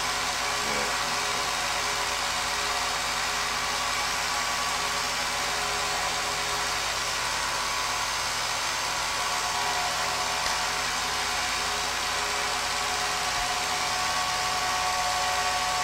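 Home-movie film projector running: a steady whir of its motor and fan, with a constant hum.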